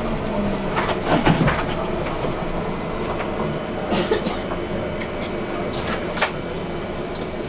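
Interior noise of a moving bus: steady engine and road noise, with a few sharp rattles and knocks, the loudest cluster about a second in and more near the middle and later on.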